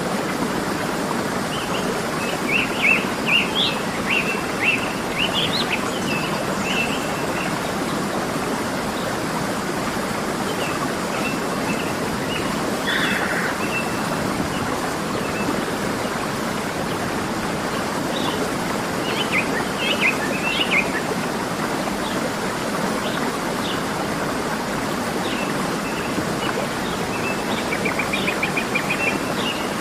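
Waterfall water rushing steadily, with songbirds chirping over it in short bursts every few seconds and a quick trill near the end.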